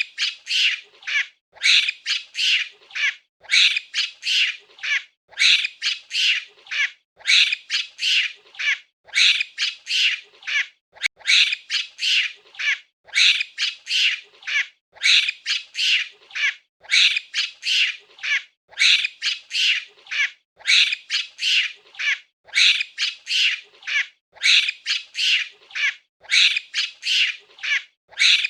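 Monkey giving shrill, squawking calls over and over, clusters of several short calls about every two seconds.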